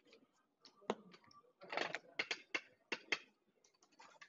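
A run of sharp clicks and clacks of casino chips being handled on the gaming table, with a denser clatter about two seconds in.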